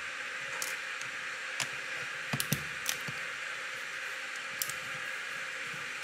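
Scattered light clicks and taps of a screwdriver working a stubborn laptop heatsink screw that won't turn, over a steady hiss.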